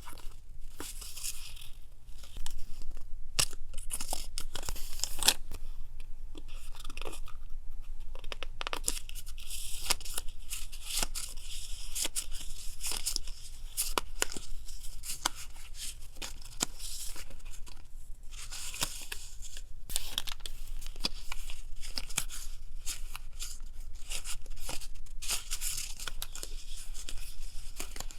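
Paper being torn and handled for collage work: a continuous run of short rips and rustles, over a steady low hum.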